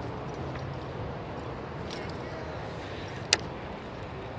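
Steady rushing outdoor background noise, with a sharp knock about three seconds in and a fainter tap a little earlier.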